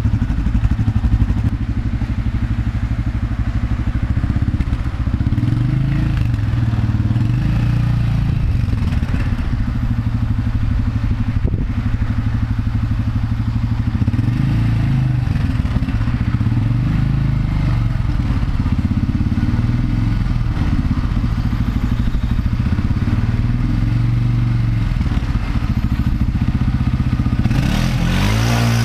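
Polaris Sportsman 500 H.O. ATV's single-cylinder four-stroke engine running through a modified stock muffler with an added 2-inch exhaust exit. Revs rise and fall as the quad is ridden around. Near the end it passes close by with a rise in pitch.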